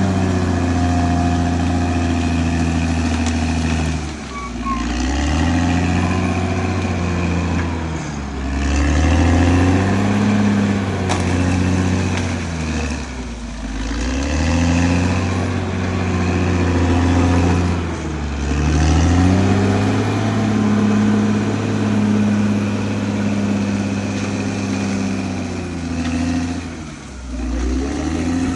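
Caterpillar D6R XL bulldozer's diesel engine working under load, its note dropping and picking up again several times as it pushes and eases off.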